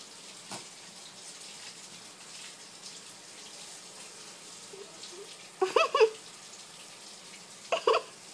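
A dog gives short, high-pitched whines twice, about two seconds apart, over a steady background hiss.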